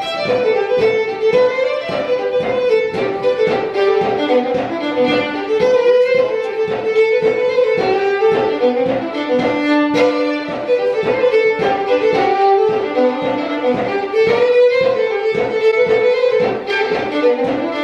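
A fiddle playing a fast tune in quick, short bowed notes.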